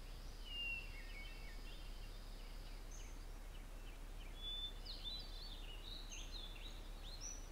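Faint birds chirping: short high calls and quick pitch glides scattered throughout, over a quiet background hiss. A thin steady high tone runs under the first few seconds.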